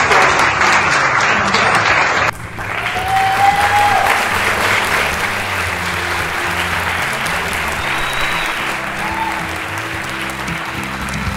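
A group of people applauding, which cuts off about two seconds in; then background music with a steady bass line.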